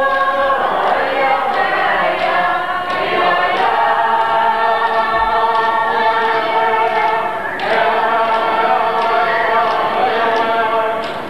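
Iñupiaq dance song sung in unison by a group of singers, over a steady beat of large hand-held frame drums (qilaut). The singing dips briefly about two-thirds of the way through as a new phrase begins.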